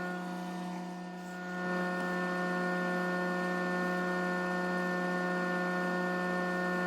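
Microwave oven running: a steady electrical hum with a brief dip in level about a second in.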